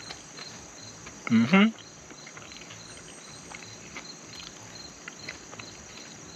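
Insects chirping steadily in a regular rhythm of about two or three chirps a second over a high, even hiss. About a second in, a man makes one brief, loud voiced sound.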